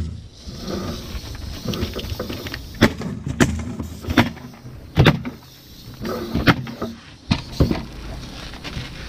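Pneumatic coil roofing nailer firing nails into the roof: about seven sharp shots at irregular intervals, two of them close together near the end, with rustling between them.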